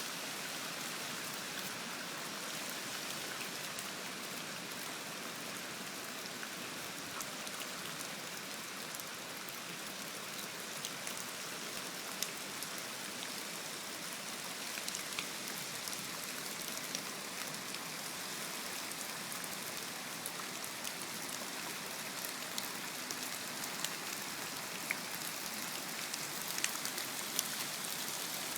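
Steady rain falling, with individual drops ticking sharply on nearby surfaces, the ticks coming more often near the end.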